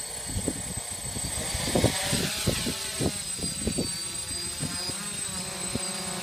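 DJI Flame Wheel F450 quadcopter's motors and propellers spinning up, the whine rising in pitch about two seconds in as it lifts off, then a steady buzzing hover with the pitch wavering. Low buffeting thumps run underneath.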